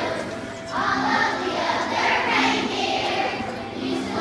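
A choir of schoolchildren singing a Christmas carol together in unison, with held notes and a brief dip between phrases about half a second in and again near the end.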